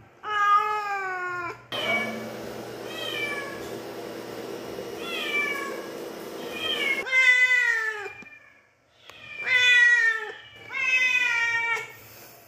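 Domestic cats meowing: about eight separate meows, each falling in pitch. One long meow comes first, four shorter, softer ones follow over a steady background hum, and three loud drawn-out meows come in the second half.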